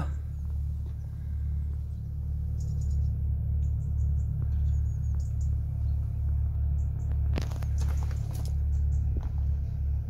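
Steady low rumble with scattered short clicks and knocks, most of them about seven to eight and a half seconds in.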